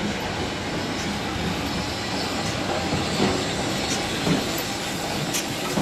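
Railway coaches rolling slowly past, a steady rumble of wheels on track with a few sharp clicks as they cross rail joints, while a small steam tank locomotive pushes them from the rear.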